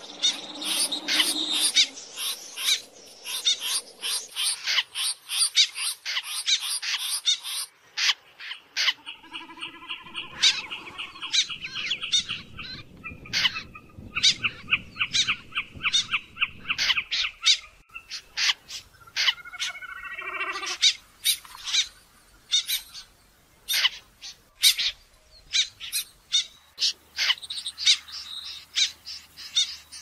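Snipe calls from a bird-lure recording: a rapid run of short, sharp notes, about four a second, broken now and then by stretches of harsher, buzzier calls.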